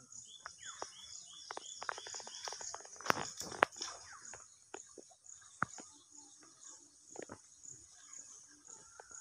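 Outdoor ambience of insects chirping steadily in a high, pulsing band, about two pulses a second, with a quick run of short, falling bird chirps in the first two seconds. Scattered sharp clicks and knocks run through it, the loudest a little past three seconds in.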